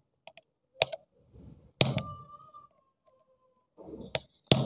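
A screwdriver knocking an iron nail further down into a small motorcycle battery's plastic top: about five sharp, irregular knocks, the loudest near the middle followed by a brief metallic ring.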